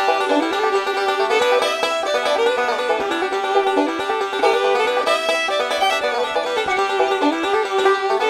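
Background instrumental music: a quick run of picked notes on a plucked banjo, in a bluegrass style, with no bass.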